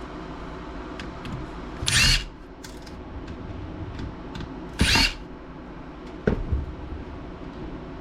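Cordless electric screwdriver whirring in two short bursts about three seconds apart, backing screws out of a laptop case. Light clicks of small parts between them and a sharp knock about six seconds in.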